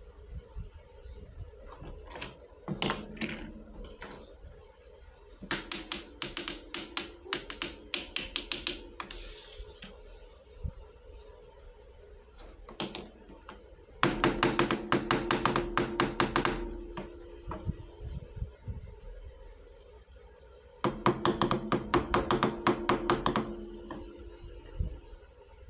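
Small miniature toy kitchen pieces clicking and tapping in quick runs of many small clicks. There are four runs of a few seconds each, the longest about halfway through, with a faint ringing under them.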